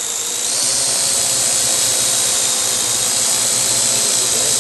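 Quadcopter's four electric motors and propellers running with a steady high whine and hiss as it hovers close. The whine grows louder and a little higher about half a second in.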